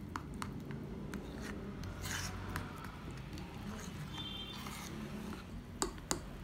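A metal fork stirring flour and liquid into a batter in a bowl: soft scraping with small clicks of the fork against the bowl, and a few sharper clicks near the end.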